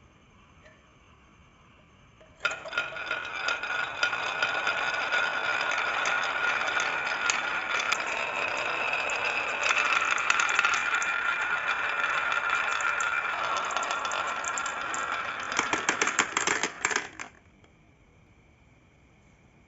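Marbles rolling and rattling down a marble run track in a continuous clattering rush with a steady rolling ring. It starts about two and a half seconds in, ends in a burst of clatters, and stops about three seconds before the end.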